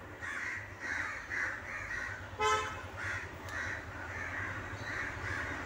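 Birds calling over and over, short rough calls about twice a second, over a low steady hum. A brief horn-like toot sounds about two and a half seconds in.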